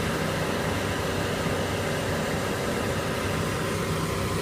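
Chevrolet Aveo's four-cylinder engine idling steadily, with no cracking from the worn sway bar link at this moment.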